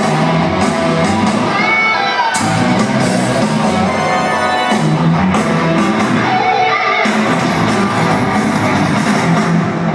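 Rock band playing loud live music, with electric guitar and drums, heard from the audience in a reverberant arena.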